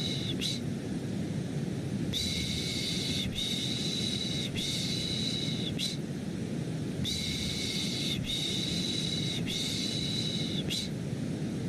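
Rhythmic human 'shh, shh, shh' shushing for settling a baby, in runs of three long shushes with a pause of about a second between runs. Under it runs a steady, low, rushing white noise.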